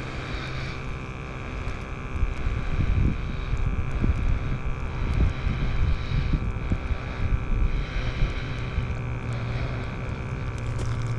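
An engine running steadily at idle, with gusts of wind buffeting the microphone.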